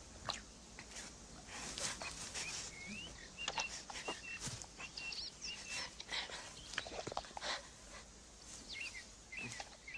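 Brown bear feeding on mushrooms in low vegetation: faint chewing, snuffling and rustling with scattered small clicks, and a few bird chirps in the background.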